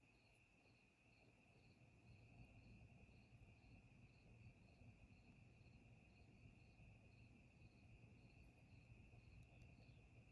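Near silence, with faint crickets: a steady high trill and a quieter chirp repeating about three times a second.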